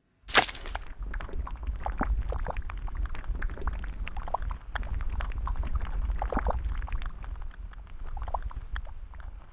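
A sharp hit about half a second in, then a thick dark liquid oozing and bubbling over a steady low rumble, with many small wet pops and gurgles.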